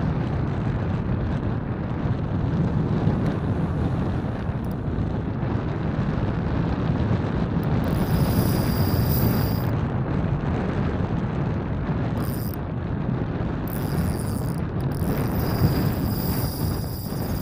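Wind buffeting the microphone on an open-sea fishing platform, a loud, uneven rumble. From about 8 seconds in, a thin high whine comes and goes several times.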